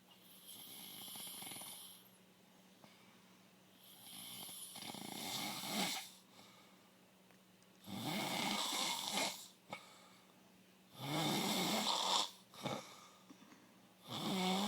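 A sleeping man snoring: five long snores about three seconds apart, the later ones louder.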